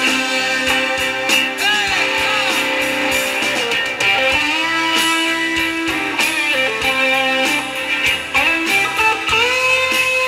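Live rock band playing an instrumental passage through a concert PA, led by an electric guitar whose notes bend up and down in pitch over sustained chords.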